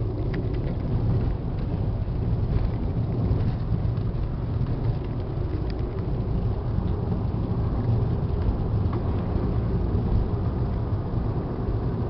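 Steady low rumble of a car driving down a paved mountain road, heard from inside the cabin: engine and tyre noise with a few faint ticks.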